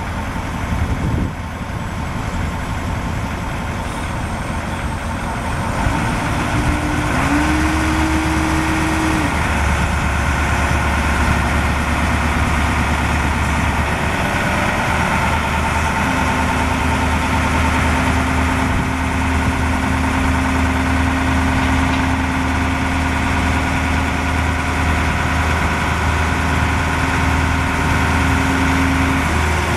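Caterpillar 3208 V8 diesel engine of a digger derrick truck running steadily, speeding up about seven seconds in as the hydraulic boom is worked. A steady whine rides over the engine through much of the second half.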